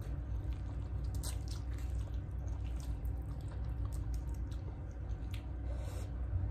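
Close chewing and mouth sounds of people eating quickly, with a few short clicks scattered through.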